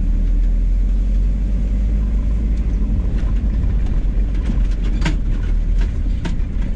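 Motorhome driving on a rutted dirt road, heard from inside the cab: a steady low rumble of engine and tyres. A few sharp knocks and rattles come in the second half, the loudest about five seconds in.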